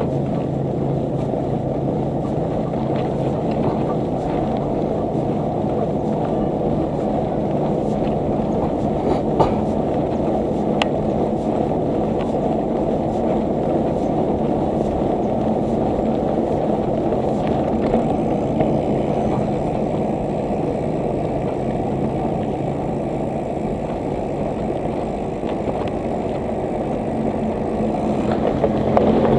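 Steady low rumble of wind buffeting the camera microphone on a moving bicycle, with a faint steady hum underneath and a few light clicks.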